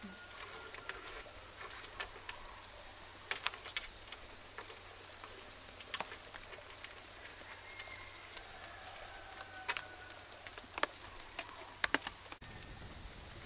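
Campfire of dry bamboo and wood crackling, with sharp pops every second or so over a faint steady background, and a few faint thin whistling tones in between.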